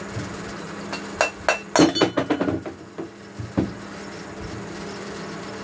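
Several sharp knocks and clicks, clustered from about a second in to nearly four seconds, as the metal end cap of an electric water-pump motor is pulled off the housing and handled on a wooden workbench.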